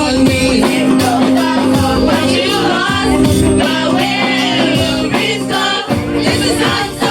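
Congregational gospel worship singing: a group of voices singing over a steady held bass line, keyboard and light percussion.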